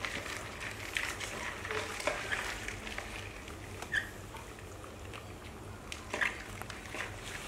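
Live crabs scrabbling in a plastic basin, their legs and claws making a soft crackle and scattered clicks against the plastic. A brief high squeak about four seconds in.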